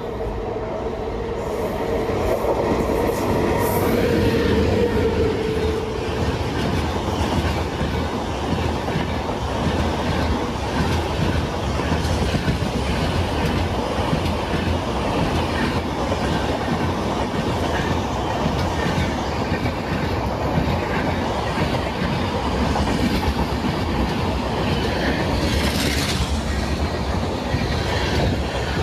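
Passenger express hauled by a WAP-7 electric locomotive, passing at speed. A steady held tone sounds in the first few seconds as the train nears, then comes the loud, steady rumble and clatter of the coaches' wheels on the rails as the rake rushes past.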